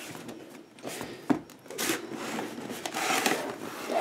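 Inner cardboard box being handled and its lid flap opened: a sharp click about a second in, then cardboard scraping and rustling that grows louder toward the end.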